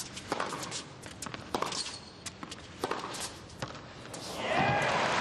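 Tennis rally: the ball struck by racquets about every second and a half, with players' footsteps and shoe squeaks on the hard court. Near the end a louder swell of crowd noise rises and then cuts off sharply.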